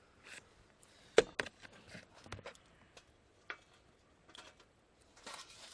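Irregular clicks and light knocks of camp cooking gear being handled, the loudest about a second in, with a short scraping rustle near the end.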